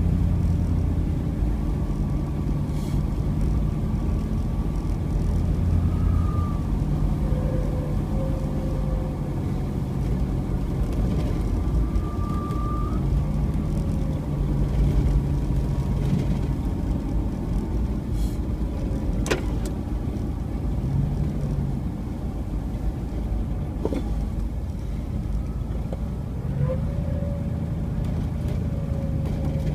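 A car driving through a snowstorm: steady engine and road noise, with the engine's hum stepping up and down in pitch several times as the speed changes. A sharp click about two-thirds of the way through, and a fainter one a few seconds later.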